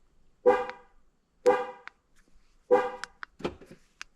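Car horn giving three short chirps about a second apart, with faint clicks between them, as a newly programmed key fob is tested: the horn chirp confirms the car is answering the new remote.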